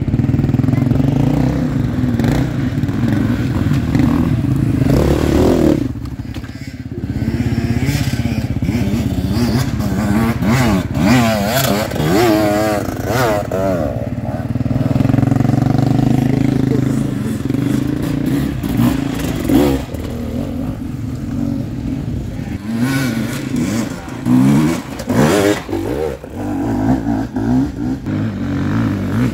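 Enduro dirt bike engines revving on a steep hillclimb, more than one bike at once: a steady engine drone with the pitch rising and falling again and again as the throttle is worked.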